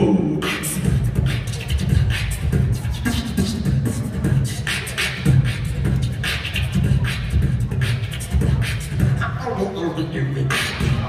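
Solo beatboxing through a microphone and the hall's PA: a steady rhythmic groove of sharp snare and hi-hat clicks over pulsing vocal bass.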